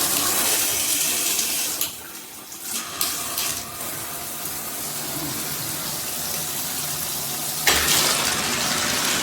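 Water spraying from a multi-mode shower head. The spray cuts out briefly about two seconds in, runs softer for several seconds, then comes on louder near the end, as the spray setting is switched.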